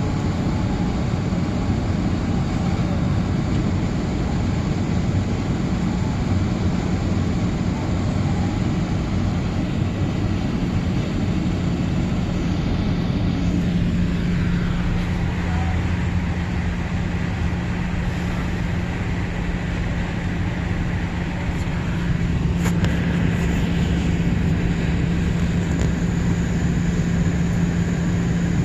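Airbus A380's four turbofan jet engines running at takeoff power: a loud, steady rumble with a constant low hum underneath.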